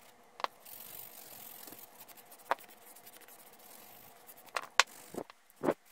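Hand nail file rasping against a gel nail, a light hissing scrape in the first couple of seconds, followed by a few small clicks and taps.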